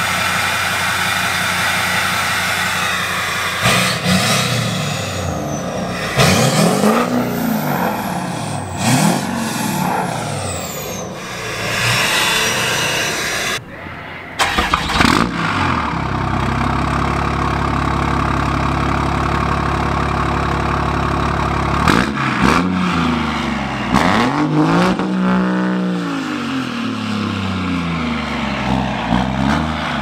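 A 2006 LBZ Duramax V8 turbodiesel on a 5-inch straight-pipe exhaust idles with a turbo whistle, then is blipped several times, the whistle rising and falling with each rev. About halfway through it gives way to a 2008 Dodge Ram's 6.7 Cummins inline-six on a 5-inch exhaust, which idles and is then revved repeatedly. The Cummins is louder, and the Duramax has more whistle from its smaller turbo.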